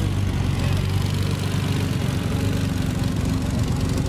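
Air-cooled flat-six of an RWB-bodied Porsche 911 (993) idling steadily, a deep, even engine note.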